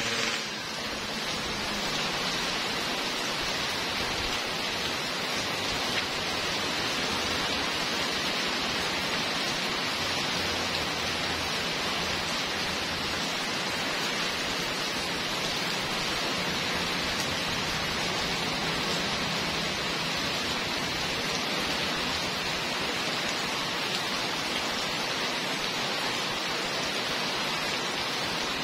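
Heavy rain pouring steadily onto a wet paved street, an even hiss with no change.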